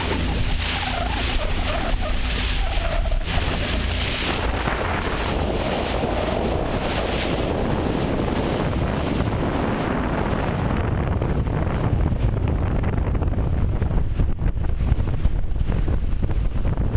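Wind buffeting the microphone over the wash of sea water, gusting a little harder near the end.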